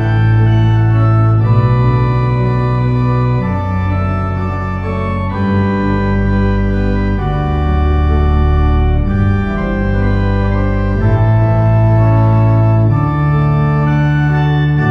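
Church organ playing full, sustained chords over a bass line that changes note every second or two.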